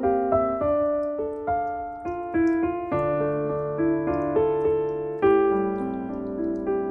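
Background piano music: a gentle melody of single notes over a bass line, each note fading after it is struck.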